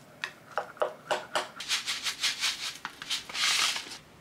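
Plastic rice paddle mixing cooked rice in a glass bowl: a run of short scrapes and taps against the glass that come faster toward the middle, then a longer rustling hiss near the end.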